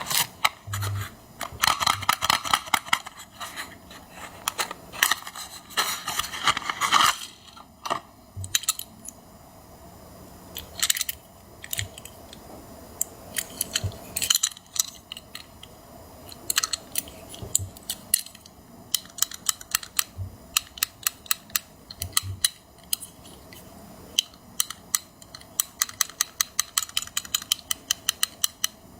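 Close handling sounds of a die-cast toy truck and its packaging: scattered sharp clicks and taps, with bursts of dense rustling about two to three seconds and five to seven seconds in.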